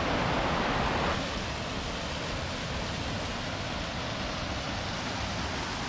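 Waterfall pouring: a steady, dense rush of falling water close by, slightly louder for about the first second and then even.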